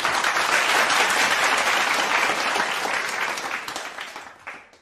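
Applause: many hands clapping in a dense, steady round that fades over the last second or so and cuts off abruptly at the end.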